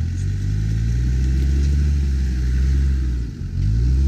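Land Rover Discovery Td5's five-cylinder turbodiesel engine running steadily as the truck crawls over rough ground, with a brief dip in revs a little past three seconds before it picks up again.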